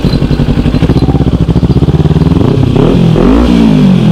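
Kawasaki Ninja 300's parallel-twin engine running at low speed, then rising and falling in pitch twice from about two and a half seconds in as the throttle is opened and eased.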